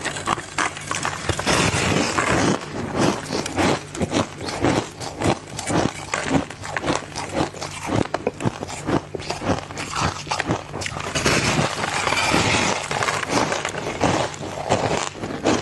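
Ice cubes being bitten and chewed close to the microphone: a steady run of sharp, crisp crunches, several a second.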